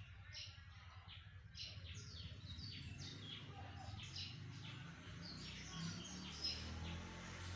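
Birds chirping: many short, quick downward chirps, several a second, over a faint steady low hum.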